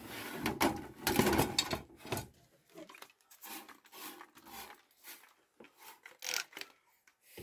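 Handling noise from a clear plastic reptile enclosure and its fittings: rubbing, scraping and light knocks, densest and loudest in the first two seconds, then scattered shorter rustles and taps.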